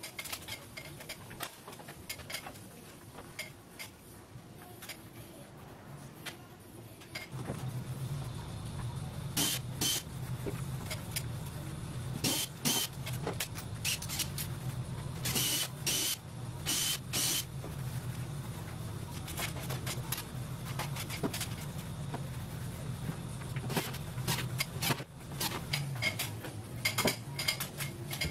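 Makita cordless drill-driver running in short bursts, driving screws, with clicks and knocks between runs. A steady low hum comes in about seven seconds in and runs under it.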